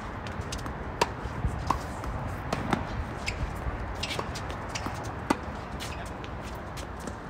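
Tennis rally on a hard court: racquet strikes on the ball and ball bounces as sharp, irregular knocks, with players' shuffling footsteps. The loudest hits come about a second in and just after five seconds.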